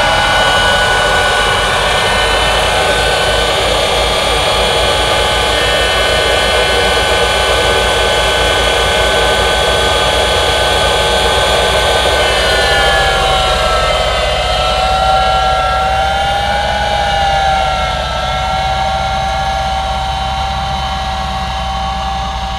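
Tractor running with a pneumatic corn planter's air fan, a steady high whine with several tones. About twelve seconds in the pitch dips and wavers, then settles, and the sound eases slightly as the rig pulls away.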